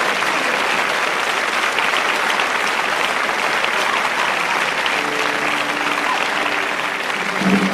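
Large concert audience applauding steadily. About five seconds in, a faint steady held note joins beneath the clapping.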